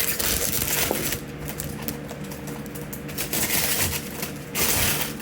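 Plastic protective wrap and packaging rustling and crinkling, with small irregular clicks and taps, as a wrapped car taillight is handled.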